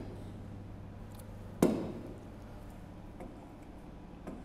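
A single sharp tap about one and a half seconds in, with a couple of fainter ticks, over a low steady electrical hum.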